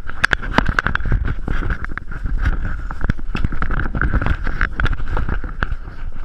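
A horse walking through dense palmetto scrub, heard from the saddle: irregular clicks, knocks and scraping of hooves, tack and brush against the rider and the camera, over a low rumble of camera handling and a steady high-pitched drone underneath.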